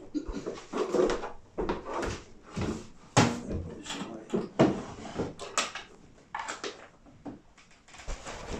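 Irregular knocks, bumps and clatter of objects being handled, with a few sharper knocks about three, four and a half and five and a half seconds in.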